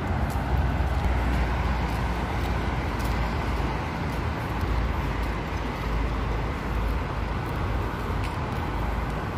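Steady outdoor street ambience: a continuous low rumble with hiss above it and no clear single event.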